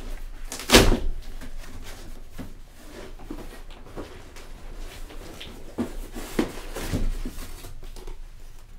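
Cardboard box and its packing being handled and rummaged through: a sharp knock about a second in, then scattered knocks and rustles.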